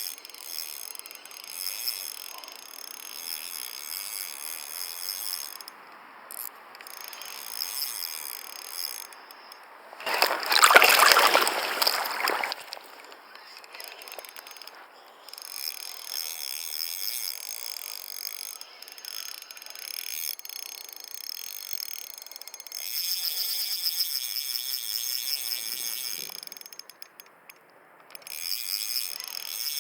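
A steady, high-pitched insect chorus that drops out briefly several times. About ten seconds in, a loud rushing noise lasts for roughly two seconds.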